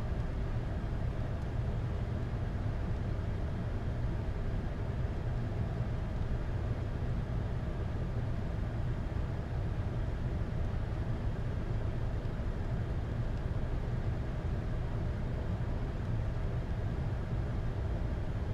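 Steady low rumble of cockpit background noise aboard a Boeing 747-8, even in level and without distinct events.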